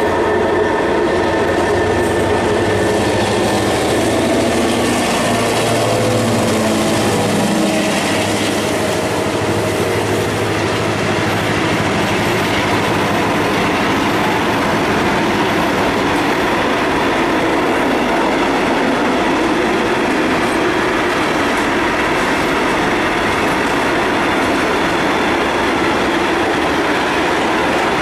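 HŽ class 2062 diesel locomotive passing, its engine note dropping in pitch about seven seconds in. After that comes the steady rolling noise of a long string of loaded grain hopper wagons going by.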